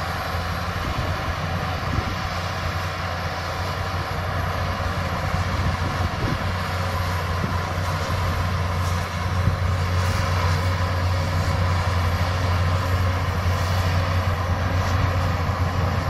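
Crawler bulldozer's diesel engine running steadily under load as it pushes soil, a low drone that grows a little louder partway through.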